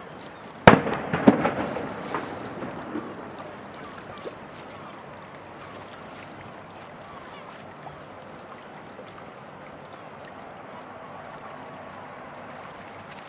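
Farewell salute from the saluting guns of the four-masted training ship Juan Sebastián Elcano. One sharp bang less than a second in, then a rapid string of weaker bangs over the next couple of seconds, then only a steady open-air hiss.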